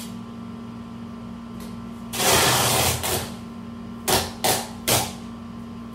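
Packing tape being pulled off its roll across a cardboard box: one long rip about two seconds in, then three short rips in quick succession about two seconds later.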